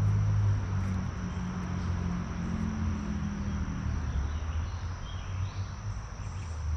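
Steady outdoor creekside ambience: a continuous insect chirr over an even hiss, with a low rumble underneath.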